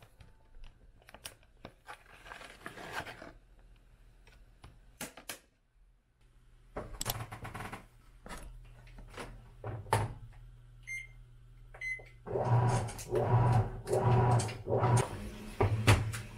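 Light clicks and taps of containers being handled, then two short electronic beeps from a washing machine's control panel, followed by the top-loading washing machine's motor running in a pulsing, stop-start rhythm as the wash starts.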